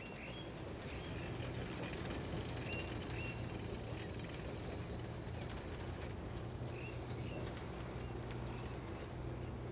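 Historic rack-railway train with its He 2/2 electric locomotive running along the track: a steady low hum under rapid irregular clicking and rattling from the wheels and rack. Birds chirp a few times.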